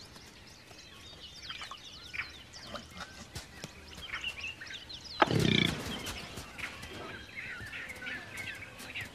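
Outdoor wildlife sounds: faint, scattered bird chirps throughout, and about five seconds in a single loud, sudden animal call lasting about a second.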